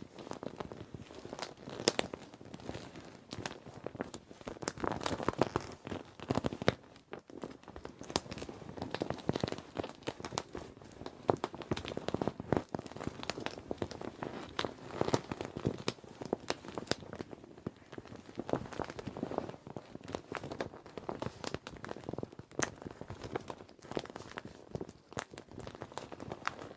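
Children's inflatable plastic swimming ring being handled and squeezed: continuous irregular crinkling and crackling of the vinyl, with many sharp clicks.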